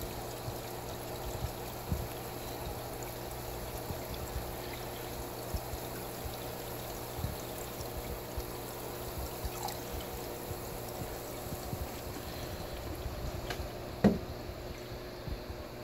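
A jug of liquid poured steadily into an aquarium, with an airstone bubbling in the tank. One sharp knock about 14 seconds in.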